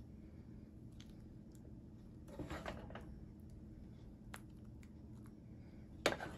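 Wooden spoon scooping chunky tomato salsa out of a skillet and spooning it onto crisp fried tortillas: faint soft scrapes and wet plops, with one sharp knock of the spoon against the pan near the end, over a faint steady low hum.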